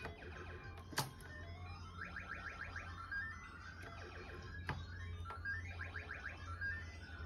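Electronic game sound effects from a mahjong arcade machine: runs of short beeps climbing in pitch, twice, with a click about a second in, over a steady low hum.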